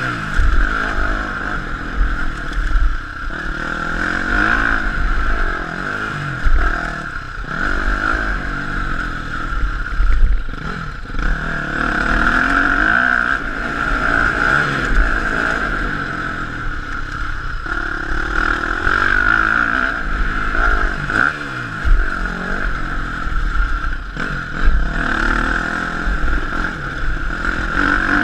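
KTM 250 SX-F single-cylinder four-stroke motocross engine revving up and falling back again and again while riding a dirt track, heard through a rider-mounted GoPro with wind rumble and clatter from the bumps.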